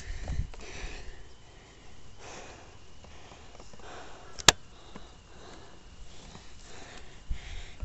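A single sharp shot from an airsoft shotgun, about four and a half seconds in, over soft hissing noises that come and go.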